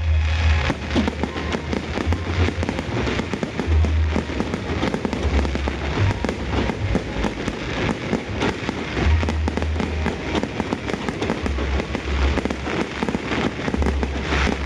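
Fireworks display in a dense, continuous barrage of bangs, pops and crackling shells going off in quick succession.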